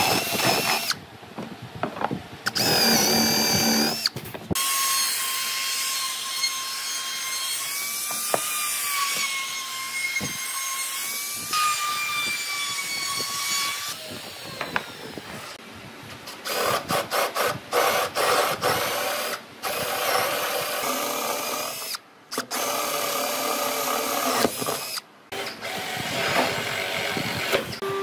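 Handheld power drill boring into pine boards: a steady, slightly wavering motor whine for about ten seconds in the middle. Shorter spells of drilling and knocks of wood come before and after it, changing abruptly from one to the next.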